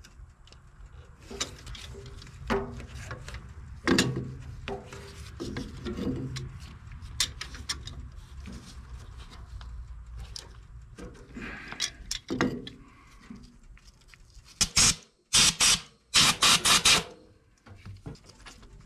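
Hand tools working the spark plugs out of an old Ford 8N tractor engine: scattered metal clicks and clinks of a wrench on the plugs. Near the end come a few loud, short, hissy bursts.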